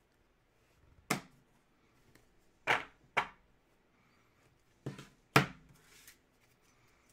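Trading cards and card holders being handled and set down on a tabletop: five sharp clacks at uneven intervals, the last the loudest.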